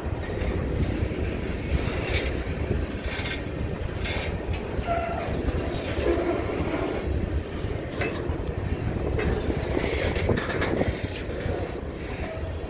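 Covered hopper cars of a BNSF freight train rolling close past, a steady low rumble of steel wheels on rail, with clacks every second or so as wheel sets cross rail joints.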